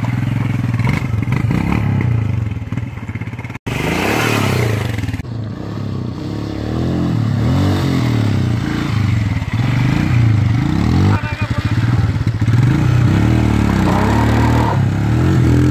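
Royal Enfield Himalayan single-cylinder motorcycle engine revving up and down repeatedly while riding off-road, with loose gravel scraping and clattering under the tyres.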